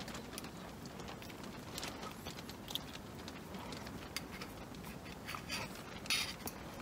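Eating from a metal camping pot: a spoon clicking and scraping against the pot, with the mouth sounds of eating. One louder, hissy sound about six seconds in.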